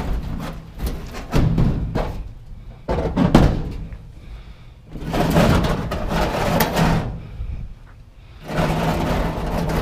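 A washing machine being heaved and slid onto a truck bed. There are heavy knocks in the first few seconds, then two long scraping drags.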